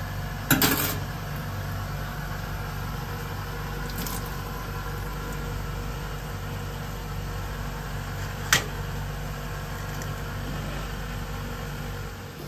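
Steady low mechanical hum throughout, with a short clatter about half a second in and a single sharp click about eight and a half seconds in, from tweezers, scissors or the spiny sea urchin shell knocking against a stainless steel sink.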